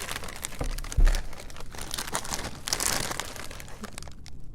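Plastic snack chip bag crinkling as it is handled, with a dull thump about a second in.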